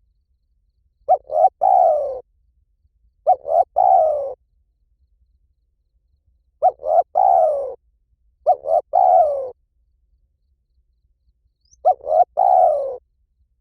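Spotted dove cooing: five phrases about two to three seconds apart, each two or three short clipped notes running into a longer note that falls in pitch. This is the 'หลิ่วตัน' coo style used as a lure call to make other spotted doves coo back.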